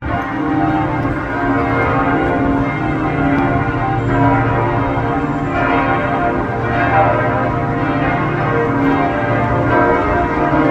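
The church bells of St. Michael and St. Gudula Cathedral ringing a full peal: several bells sounding at once, their strokes and long hums overlapping in a continuous, unbroken ring.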